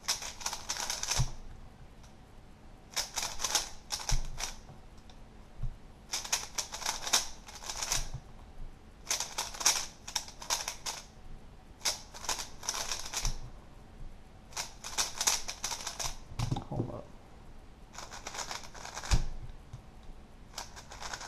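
Plastic 3x3 speed cube turned fast by hand, giving bursts of rapid clicking and clacking, each a second or two long and repeated about every three seconds, as an F-perm algorithm is run over and over. A single low thump comes near the end.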